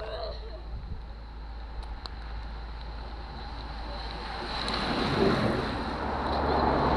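A team of racing cyclists on time-trial bikes sweeps past at speed, with a car behind them. Their tyres and the air they push make a rushing sound that swells to its loudest about five seconds in and stays up near the end, over wind on the microphone.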